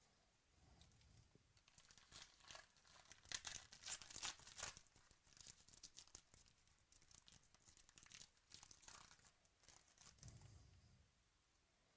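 Faint tearing and crinkling of a baseball card pack's wrapper as it is ripped open and handled, a run of crackles and rips lasting several seconds.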